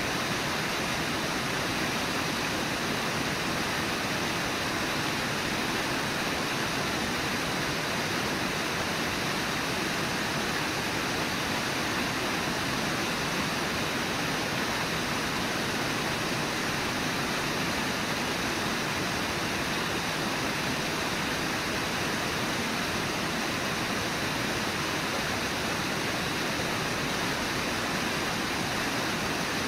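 Steady, even rush of the Brooks River's flowing water, with no separate sounds standing out.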